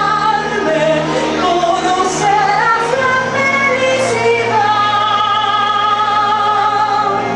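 A solo voice singing a melody over backing music with sustained bass notes, ending on one long held note.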